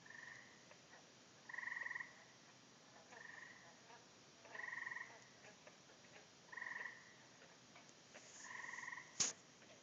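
An unidentified animal at a pond giving short, pulsed calls about half a second long, six times, one every second and a half to two seconds. A single sharp click comes near the end.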